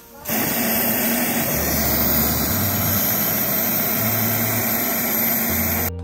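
Aerosol can of air conditioner cleaning spray hissing in one long steady burst, cutting off just before the end.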